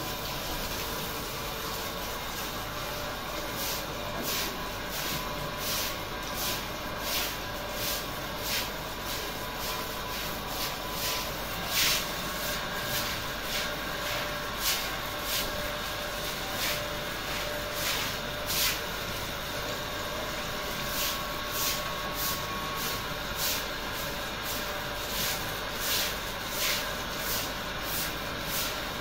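Water from a garden hose rushing and splashing onto an animal and a wet concrete floor, a steady hiss with regular swishing strokes about twice a second.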